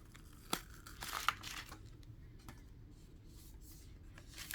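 Plastic packaging of a screen protector kit crinkling and rustling as it is handled, with a sharp click about half a second in; it goes quieter over the second half.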